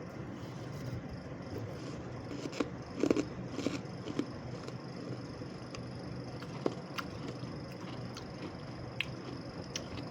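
Freezer frost being bitten and crunched, with a burst of crisp crunches a little over halfway into the first half and then a few scattered single crackles, over a steady faint hum.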